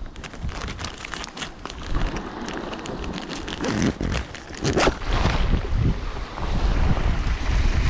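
Rustling and small clicks of hands rummaging through a tackle bag. From about five seconds in, wind buffets the microphone in a loud low rumble, with surf behind it.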